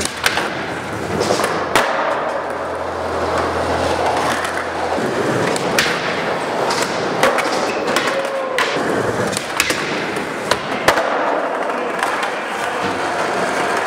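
Skateboard wheels rolling and the board sliding along a ledge, with several sharp clacks of the board hitting the ledge and the floor.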